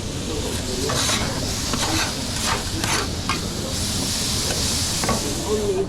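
Sizzling hiss from hot food on the serving line, swelling over the last two seconds, with short scrapes and knocks of metal serving utensils.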